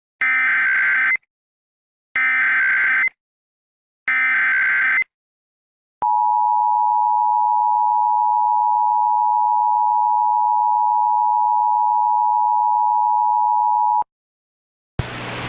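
Emergency Alert System header: three one-second bursts of screeching digital data tones, then the steady EAS attention tone held for about eight seconds. A hiss starts near the end.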